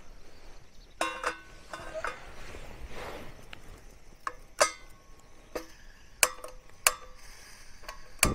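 Stainless-steel cooking pot and lid clinking as they are handled, a handful of sharp metallic knocks spread over several seconds, some left ringing briefly.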